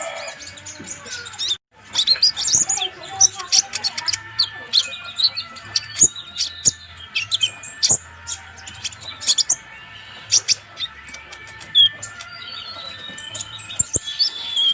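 Purple-throated sunbird (konin) singing in full voice: a quick, uneven run of high, sharp chirps and short trills. The sound drops out briefly about a second and a half in.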